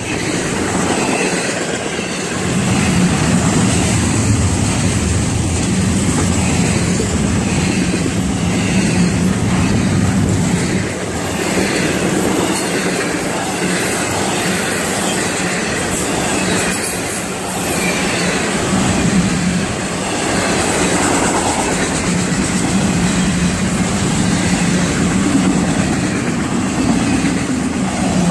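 Freight train of double-stack container cars and autorack cars rolling past close by: a steady, loud rumble and clatter of steel wheels on the rails.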